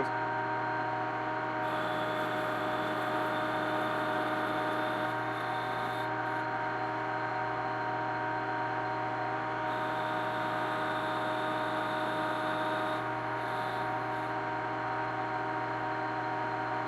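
Metal lathe running steadily, its motor and gearing giving a constant whine of several tones over a low hum. A higher hiss comes in twice for a few seconds at a time, as the cutting tool works the metal.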